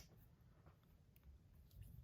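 Near silence: room tone with a few faint light clicks.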